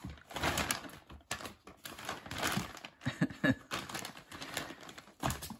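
Fabric of a cat play tent rustling and crinkling irregularly as two kittens wrestle and scramble inside it, with a few light knocks.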